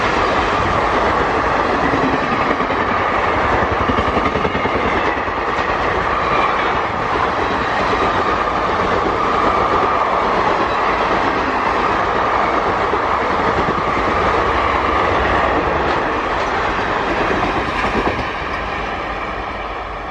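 Electric train passing at speed, its wheels clattering over the rail joints in a loud steady rush, with a steady high tone running through it. The sound drops off a little near the end as the train draws away.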